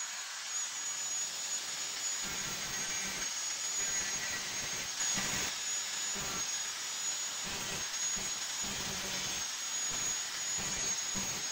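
Angle grinder with a thin cut-off disc running at speed with a steady high whine, cutting into a small steel plate. From about two seconds in, the grating of the disc on the metal comes and goes over the whine.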